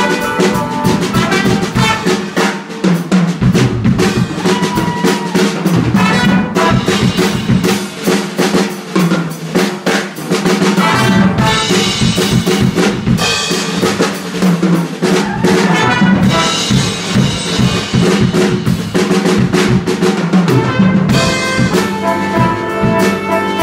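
Yamaha drum kit played with dense snare, bass drum and cymbal hits, carrying the music. Trumpet and trombone join in with held notes near the end.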